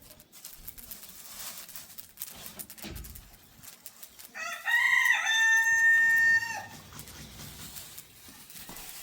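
A rooster crowing once: a couple of short rising notes, then a long held note of about two seconds, starting about four and a half seconds in.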